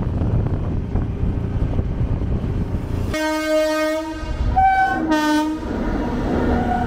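Steady low rumble of a vehicle on the road, with a horn honking for about a second roughly three seconds in. Two shorter honks follow at different pitches, one higher and one lower.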